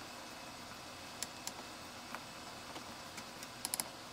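Irregular light clicks from an oscilloscope's control knob being turned to scroll the captured waveform: single clicks spread out, then a quick run of about four near the end, over faint steady background noise.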